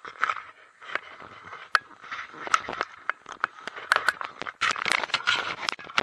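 Skis scraping over packed snow as a skier gets moving downhill: an irregular run of scrapes and sharp clicks.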